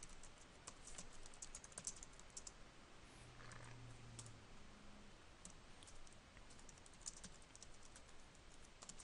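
Faint typing on a computer keyboard: quick, irregular key clicks as a sentence is typed, coming in flurries with short pauses.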